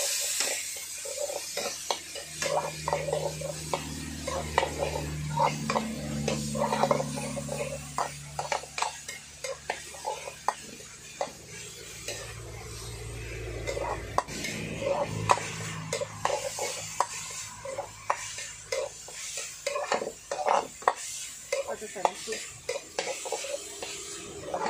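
Steel wok ladle scraping and clanking against a wok over and over as diced vegetables are stir-fried, with light sizzling underneath.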